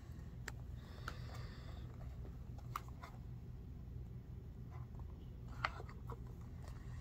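Light handling noises on a wooden desk: scattered clicks and taps as a cardboard box of bullets is picked up and set back down beside loaded cartridges. The sharpest click comes late on, over a steady low hum.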